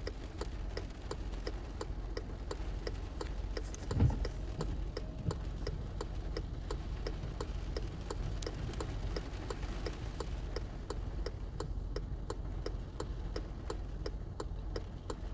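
A car's turn-signal or hazard indicator clicking steadily inside the cabin, about two and a half clicks a second, over a low steady hum. A brief louder knock comes about four seconds in.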